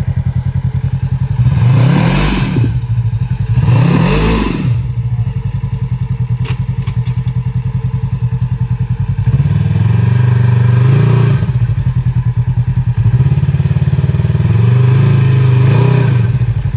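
Polaris RZR side-by-side's engine running under load as it crawls up a rock ledge: short throttle blips about two and four seconds in, then the revs held up in two longer pushes near the middle and toward the end, dropping back to idle between them.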